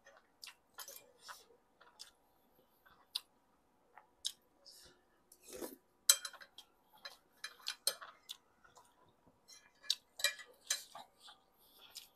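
Spoon and fork clinking and scraping on a plate in short, irregular clicks, mixed with chewing.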